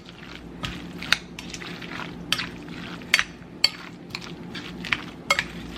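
A spoon stirring a dressed chopped salad in a bowl, clinking against the bowl about every half second with soft wet mixing between the clinks.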